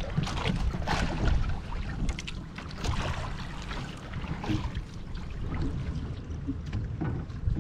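Wind rumbling on the microphone, with irregular splashes and knocks of water against a small boat.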